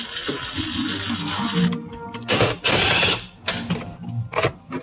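Milwaukee 18-volt cordless drill/driver backing out Torx screws from a car dashboard. The motor whines steadily for under two seconds, then runs in two shorter bursts about two and a half and three seconds in, followed by light plastic knocks.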